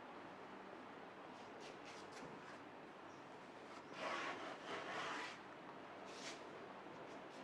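Faint background hiss, then a brief scraping, rubbing sound about four seconds in that lasts just over a second.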